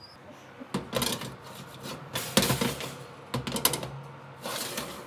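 Metal baking tray being slid onto an oven rack, scraping and clattering in a run of irregular clicks and knocks.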